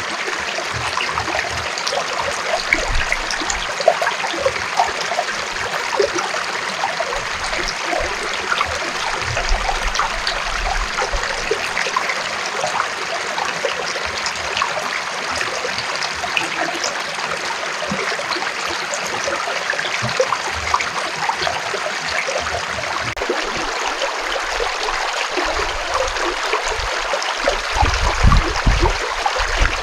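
A stream flowing, a steady rush of water with many small splashes and gurgles, and a few low thumps near the end.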